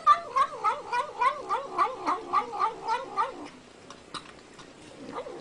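A cat yowling in a fast wavering warble, about four pulses a second, for roughly three seconds before breaking off, followed by a few faint clicks.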